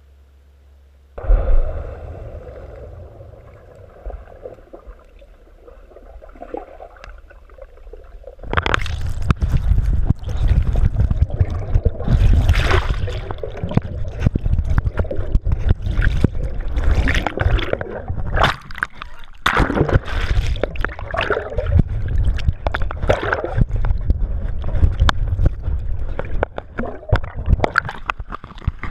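Underwater bubbling and gurgling from a swimmer breathing out bubbles beside the microphone, heard underwater and muffled. A sudden thump about a second in, then a quieter stretch until about eight seconds in, when loud, crackling bubbling takes over.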